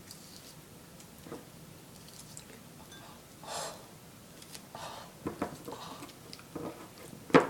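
Quiet handling of an orange and a small bowl of mashed banana: scattered soft squishing and rustling, a few small clicks, and one sharp knock near the end.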